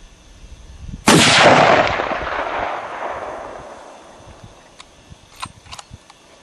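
A single rifle shot from a Tikka bolt-action in .300 Winchester Short Magnum: a sharp crack about a second in, followed by a long rolling echo that fades over about three seconds.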